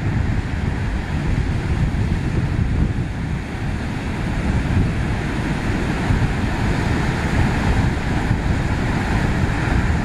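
Heavy typhoon-driven surf breaking and crashing on a beach, a continuous wash of breaking waves. Strong wind buffets the microphone, adding a steady low rumble.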